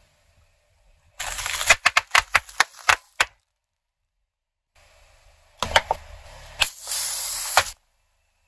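Sealed plastic snack packets filled with jelly popping and crackling as a car tyre rolls over them: a quick run of sharp pops about a second in, then a second run of pops and squelching crackle past the middle.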